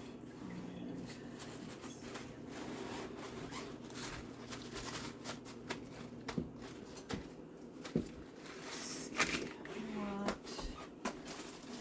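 Scattered light clicks and knocks of kitchen handling, with a short murmur of voice about ten seconds in.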